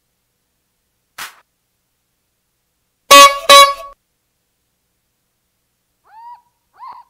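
A brief faint swish about a second in, then two loud, short car-horn honks, a quick beep-beep, about three seconds in. Near the end, faint repeated calls begin.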